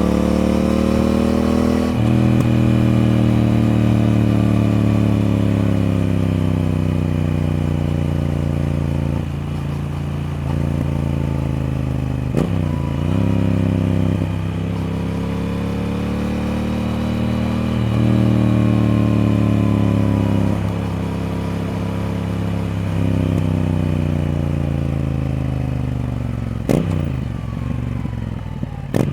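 Triumph Speed Twin parallel-twin engine riding along, its pitch climbing and sinking with the throttle and broken by several gear changes. A couple of sharp knocks come near the end.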